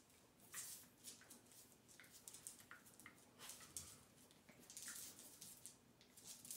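Two small dogs play-wrestling on a hard floor: faint, irregular scuffling and scrabbling of claws and bodies, with a few short squeaks.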